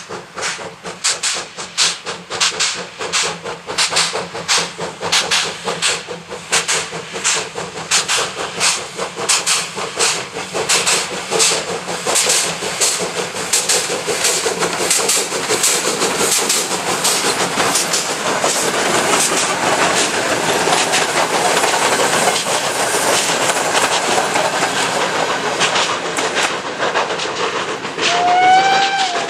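PKP Pt47 2-8-2 steam locomotive working hard with a passenger train: sharp exhaust chuffs coming quicker and quicker, then merging into a steady rush of noise as the engine and coaches pass. A short whistle sounds near the end.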